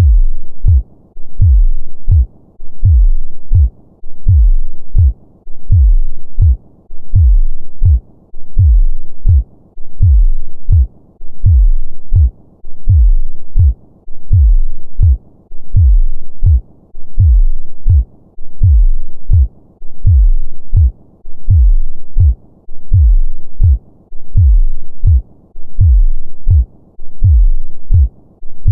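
Human heartbeat at a normal, regular rhythm: low double thumps (lub-dub) repeating evenly, over a faint steady low hum.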